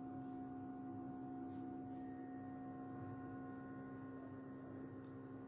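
A faint steady hum made of several constant tones.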